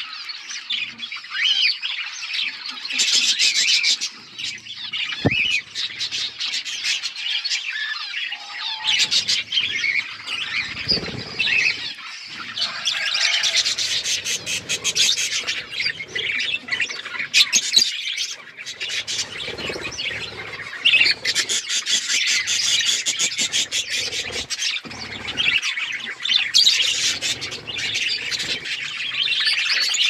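A flock of budgerigars chattering continuously, a dense mix of many overlapping chirps, warbles and short calls.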